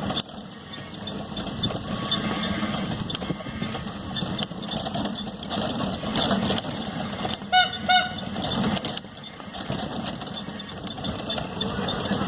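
Street traffic noise with a vehicle horn giving two short beeps about seven and a half seconds in.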